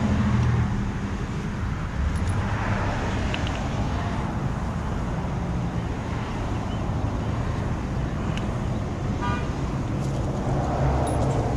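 Steady low rumble of road traffic with a vehicle engine running nearby, and a few faint small ticks near the end.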